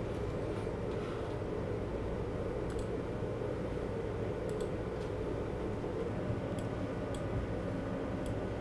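Steady low machinery hum of a control room, with a few faint, scattered clicks from the computer controls.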